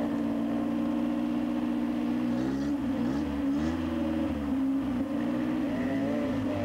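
Car engine running, its note dipping and rising a few times in the middle as the revs change, then settling back to a steady pitch.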